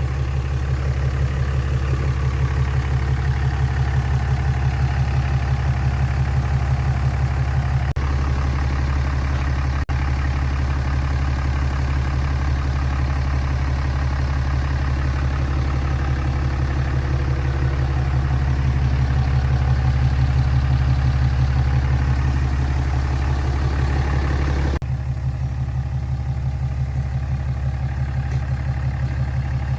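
Diesel engine of a dually pickup idling steadily after an emissions delete, with a slightly tougher exhaust note.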